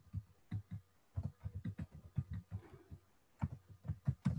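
Computer keyboard keys clicking in quick, uneven runs of typing, with brief pauses about a second in and around three seconds.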